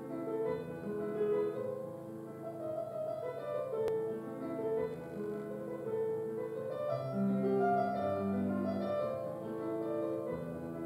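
Background music: a slow, classical-style piano piece.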